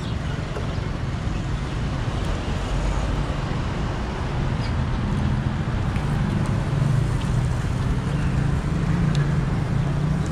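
Road traffic: vehicles passing on a street, a steady hum of engines and tyres, with an engine drone growing louder from about halfway through.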